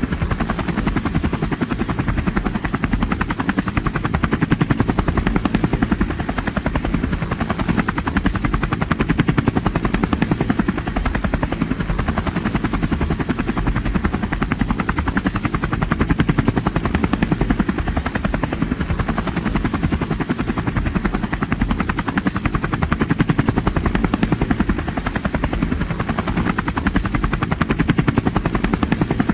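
Helicopter in steady flight heard from inside the cabin: a constant loud drone of rotor and engine with a rapid, even pulsing, heaviest in the low end.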